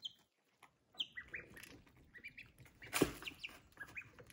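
Young chicks and ducklings peeping: scattered short, high cheeps that fall in pitch, with a single sharp knock about three seconds in.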